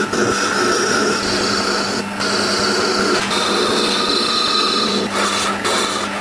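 Wood lathe running with a steady hum while a hand-held turning chisel cuts the spinning wood, a continuous scraping hiss of shavings coming off. The cut lets up for a moment about two seconds in and twice near the end.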